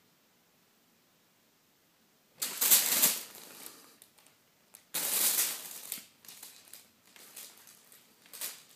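Wrapping paper rustling and crinkling under a kitten pouncing and scrabbling on it. There are two loud bursts, about two and a half and five seconds in, then lighter, shorter crackles.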